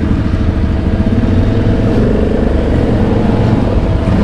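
Quad bike (ATV) engines running steadily, the nearest heard close up from the rider's seat.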